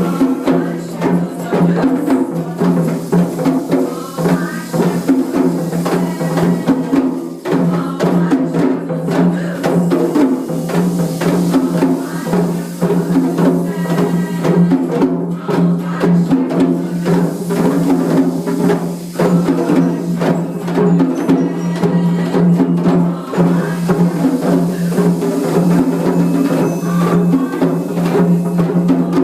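Community drum circle: many drums struck together in a dense, steady rhythm, with a steady low tone held underneath.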